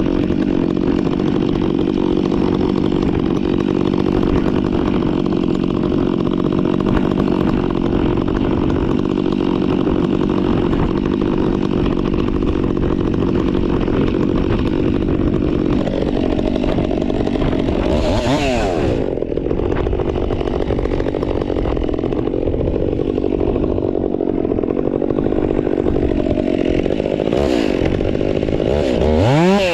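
Stihl MS 362 two-stroke chainsaw fitted with an Egan Straight Shot performance muffler, running loud and steady, with two quick blips of the throttle, one about midway and one at the end.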